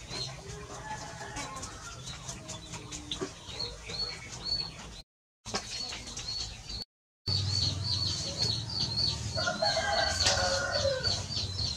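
Village yard sounds of chickens clucking, with a rooster crowing about ten seconds in, over short high-pitched chirps repeating several times a second. The sound drops out briefly twice.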